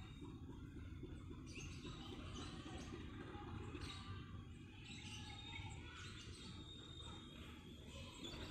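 Small birds chirping and tweeting in quick, scattered calls over a faint, steady low rumble.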